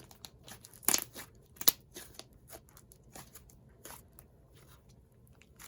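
Handling noise: a scatter of sharp clicks and crackles, with two louder snaps about one and nearly two seconds in.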